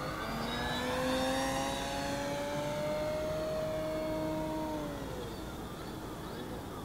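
Electric motor and propeller of an OMP Super Decathlon RC plane whining in flight. The pitch holds steady and rises slightly, then drops and fades away about five seconds in.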